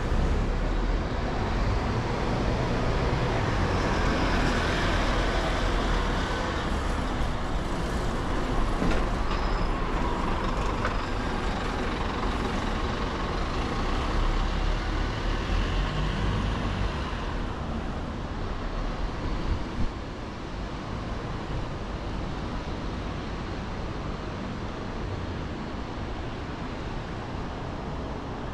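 Busy city road traffic passing close by, a steady rumble of engines and tyres with a heavy low end. It eases off after about eighteen seconds.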